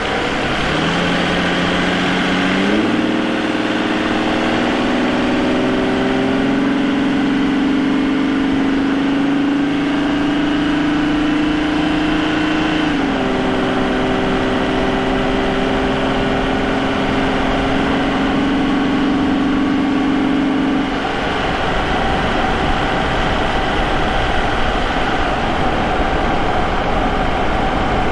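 Vauxhall Omega's Y32SE 3.2 24-valve V6 heard from the engine bay by its K&N air filter, pulling hard as the car accelerates, its note climbing steadily. About 13 s in the pitch drops in one step as the 4-speed automatic shifts up, and around 21 s the engine note falls away under a steady rush of road and wind noise as the throttle is eased for cruising.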